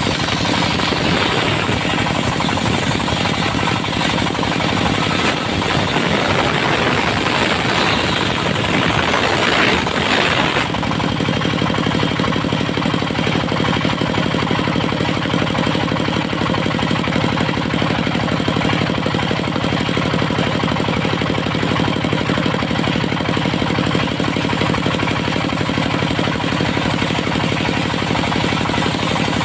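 Engine-driven portable circular sawmill running steadily, its blade cutting through dry teak with a harsh hiss for about the first ten seconds. The cutting noise stops suddenly, leaving the engine and free-spinning blade running at a steady pitch.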